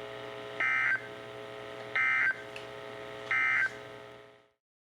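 NOAA Weather Radio EAS/SAME end-of-message data tones: three short, identical, buzzy bursts about 1.4 seconds apart, signalling the end of the warning. A faint steady hum runs between the bursts, and the broadcast cuts to silence near the end.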